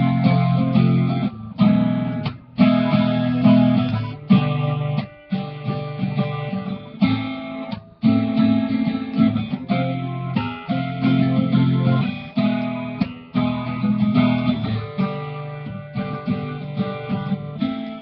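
Guitar strumming chords in a steady rhythm, an instrumental intro with no singing.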